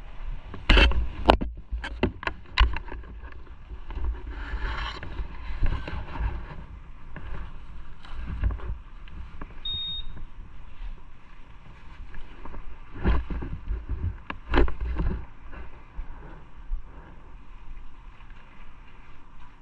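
Wind rushing over the microphone of a motorcycle on the move, with loud buffeting gusts near the start and again about two-thirds of the way through.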